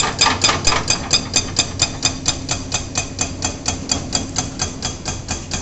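Excavator-mounted hydraulic breaker hammering its chisel into the road surface, a fast even run of strikes about five a second that grow a little weaker toward the end, over the steady hum of the excavator's engine.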